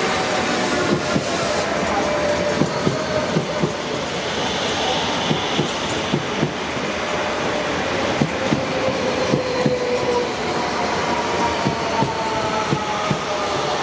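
Renfe 447-series electric multiple unit passing close by, wheels clicking over rail joints again and again while a faint whine slowly falls in pitch.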